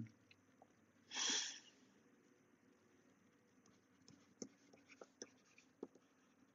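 Mostly quiet room tone with one short breath about a second in, then a few faint ticks of a stylus tapping on a tablet screen from about four seconds in.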